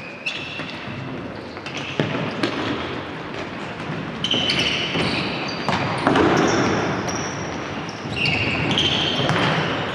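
Futsal being played on a wooden gym floor: short, high squeaks of sneakers on the boards recur throughout, with the thuds of the ball being kicked and bouncing a few times.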